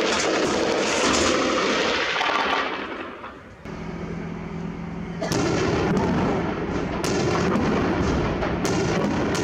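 Sustained gunfire for the first two seconds or so. After a break, the steady hum of an attack helicopter, then from about five seconds in a rocket salvo fired from it: a dense rushing noise broken by several sharp cracks.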